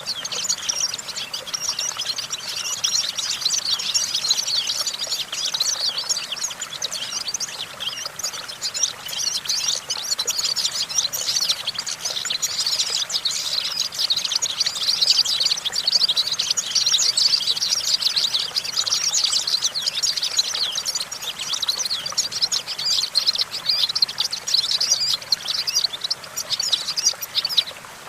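European goldfinch singing: a continuous rapid stream of high twittering chirps and trills, breaking off briefly near the end.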